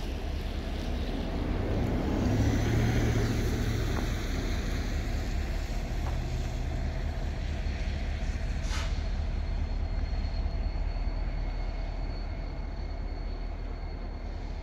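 Freight train working a yard: the steady low rumble of an EMD SD70M-2 diesel locomotive's two-stroke V16 and its rolling cars, loudest two to three seconds in. A faint steady high tone runs through it, and there is a short hiss about nine seconds in.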